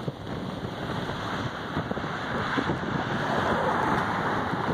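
Storm wind rushing over the microphone, a steady noise that swells about halfway through.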